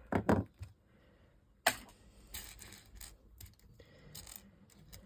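Small plastic building-block pieces clicking and rattling as they are handled and sorted on a table: two loud clicks at the start, a sharp click a little under two seconds in, then scattered light clicks.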